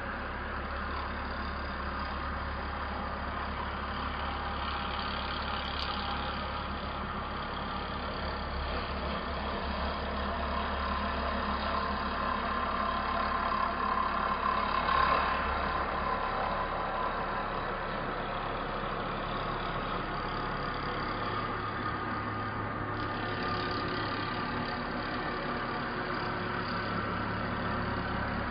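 Horizontal CNC router milling a foam block, its spindle and cutter running with a steady mechanical whirr and hum. It grows louder around the middle, and a deep hum underneath fades for several seconds in the second half, then returns near the end.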